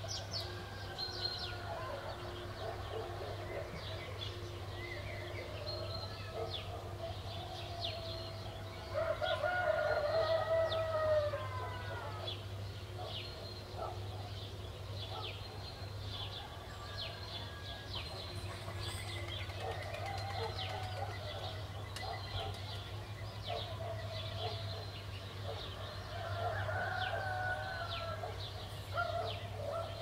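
Dawn village ambience. A rooster crows once, loudly, about nine seconds in, a drawn-out call of about two and a half seconds. Small songbirds chirp throughout, and fainter calls come later.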